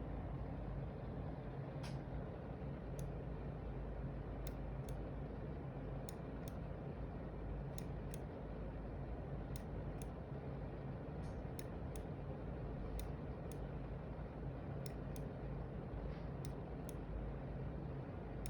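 Logitech G703 gaming mouse buttons clicking, a faint sharp click every second or so, often as a quick press-and-release pair, over a steady low hum.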